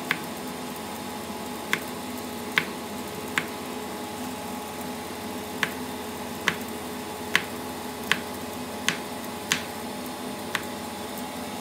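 Kitchen knife slicing button mushrooms on a chopping board: about ten sharp taps of the blade hitting the board, unevenly spaced, over a steady low hum.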